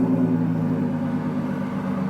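Straight-piped BMW E36 325i's M50B25 straight-six idling steadily right after start-up, a loud, even exhaust note.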